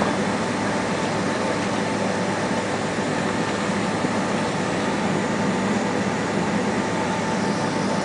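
Steady cabin noise inside a Boeing 767 on the ground: an even rush of air and machinery hum, with a few faint steady tones through it.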